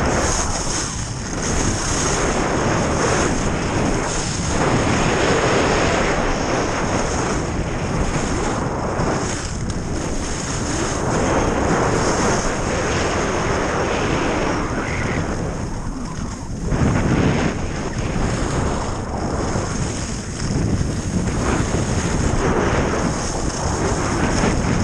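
Rushing wind buffeting the camera microphone of a skier going fast downhill, mixed with skis scraping over hard, tracked snow. The noise swells and eases every few seconds through the turns.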